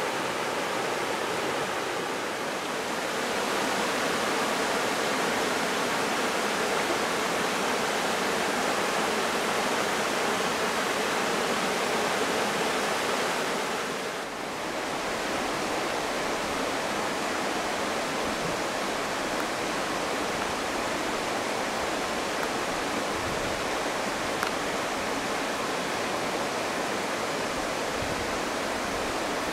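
Shallow river running over rocks in riffles and small rapids: a steady rush of water, with a brief dip about halfway through.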